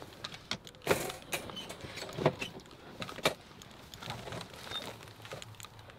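Close rustling and scattered knocks of clothing and gear being moved around right by the microphone, with three sharper knocks in the first half and softer rustling after.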